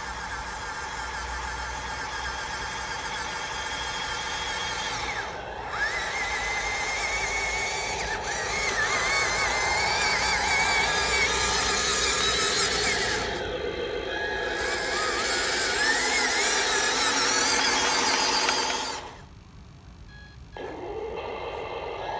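1/16-scale RC Ural-4320 military truck running on its Arduino diesel engine sound simulator through a small speaker, mixed with the whine of its electric drive motor and gearbox. Pitch rises and falls with the throttle. The sound drops away for about a second and a half near the end, then comes back.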